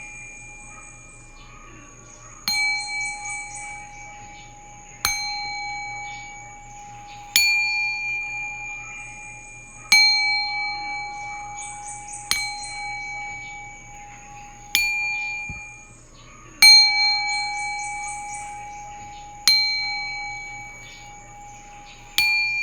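A metal singing bowl struck with a mallet about every two and a half seconds, nine strikes in all. Each strike rings with a few clear, steady tones that fade slowly into the next.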